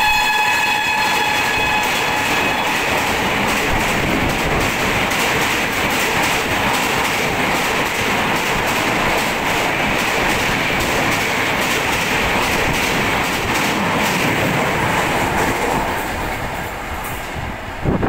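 An express train's horn, dropping slightly in pitch as the locomotive passes and dying away a couple of seconds in. Then the steady rush and clickety-clack of the passenger coaches' wheels running over the rail joints at speed, easing off near the end as the last coach goes by.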